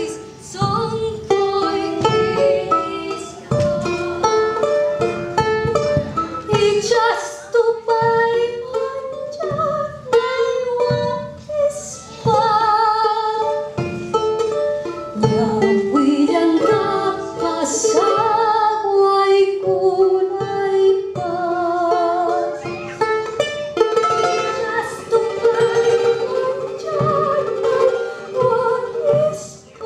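A woman singing a song in Quechua with vibrato, accompanying herself on a small strummed string instrument, with a drum playing beneath.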